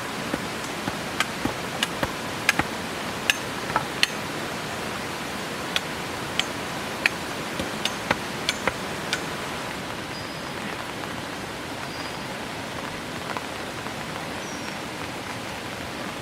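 Steady hiss of heavy rain. Sharp, irregular ticks run through the first half, and faint, short, high chirps come about every two seconds near the end.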